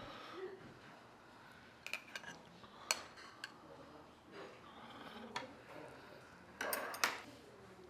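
Cutlery clinking against dishes at a meal table: a few scattered light clicks, then a short, louder scrape-like clatter near the end.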